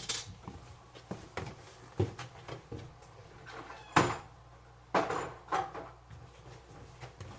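Objects being handled and set down: a series of separate knocks and clatters, the loudest about four seconds in, over a faint steady low hum.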